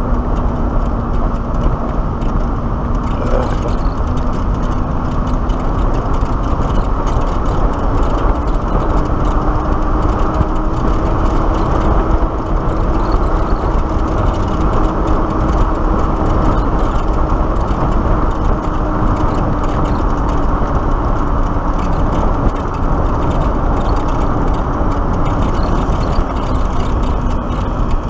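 Wind rushing over the microphone and tyre noise on asphalt from a Black Tea Bonfire X electric motorcycle being ridden along at speed. A faint whine rises in pitch with speed through the middle and falls again near the end.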